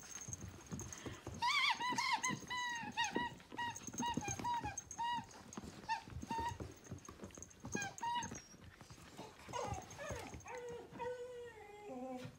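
A dog whining and yipping in play: a run of short, high whines, then a few lower, longer ones near the end, with scuffling and paw knocks on a hardwood floor.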